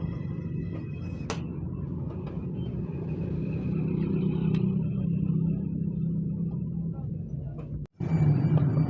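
Car on the move: a steady low rumble of engine and road noise, with a sharp click about a second in. Near the end the sound drops out for a moment and comes back louder.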